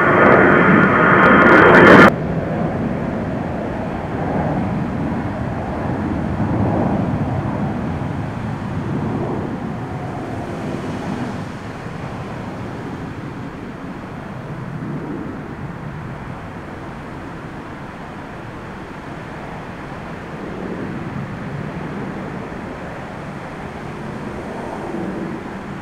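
Jet airliner passing low overhead, its engines loud with several whining tones, cut off abruptly about two seconds in. Then a lower, uneven rumble of gusty storm wind and distant jet engines that swells now and then and slowly dies down.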